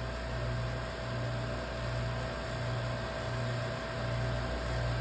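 Steady machine hum of a lab glove box's running equipment, with a low throb that swells and dips a little more than once a second and a faint steady whine above it.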